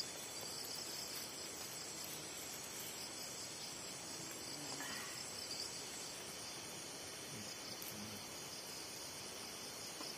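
Steady chorus of insects, a high, fast-pulsing trill.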